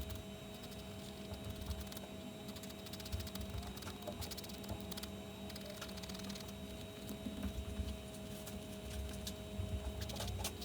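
Faint, irregular light clicking and tapping, like small objects being handled, over a steady low hum.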